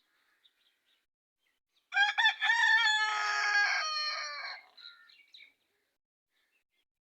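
A rooster crowing once: one loud call of about two and a half seconds starting about two seconds in, its pitch sagging at the end.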